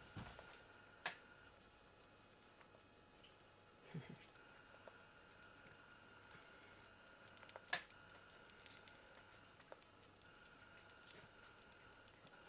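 A young Eurasian red squirrel eating fruit purée and banana: faint, irregular small clicks and smacks of its mouth, with a couple of louder ticks about a second in and about two-thirds of the way through.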